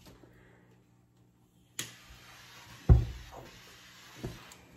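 Acetylene-filled soap bubbles being ignited. There is a sharp click near two seconds in, then a hiss, a loud deep boom about three seconds in, and a smaller pop about a second later.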